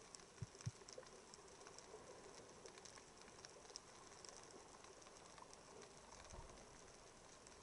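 Near silence underwater: a faint crackle of sparse tiny clicks, with two soft low thumps in the first second.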